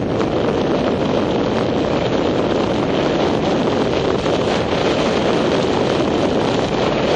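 Steady wind rush on the microphone of a camera riding on a moving vehicle, mixed with the vehicle's running noise, with no change through the stretch.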